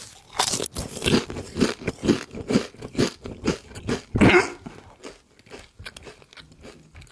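Mouthful of Koikeya Pride Potato potato chips crunched and chewed close to a furry microphone. The crunches come about twice a second, the loudest about four seconds in, then turn into quieter chewing near the end.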